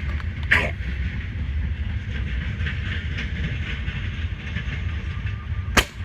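A single suppressed rifle shot near the end: a 6.5 Creedmoor Accuracy International AX rifle with a 24-inch barrel and a Thunder Beast Arms 5-inch Ultra suppressor, a sharp crack read at about 130 dB at the shooter's ear. A shorter sharp sound about half a second in, over a steady low rumble.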